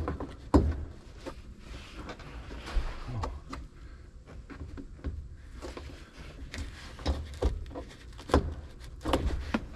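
Irregular knocks, clicks and rustling as a pickup's headliner board is pushed up against the cab roof and its plastic clips are pressed into place.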